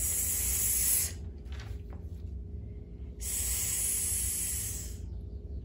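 A voice hissing a long "sss", the sound of the letter S, twice: about a second at the start, then again for about two seconds a little past the middle.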